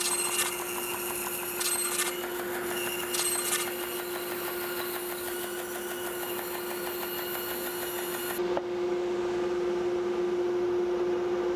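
Band saw running with a steady hum while its blade cuts through a bark-edged log section. The cutting noise stops about eight seconds in, and the saw runs on.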